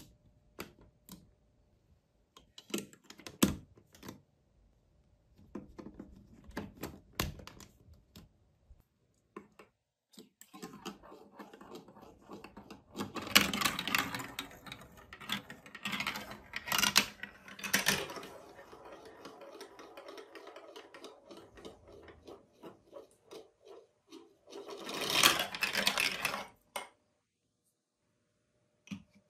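Plastic toy building blocks and track pieces clicking into place. Then a marble rolls and rattles down plastic marble-run track, loudest in a long stretch about halfway through and in a shorter burst near the end.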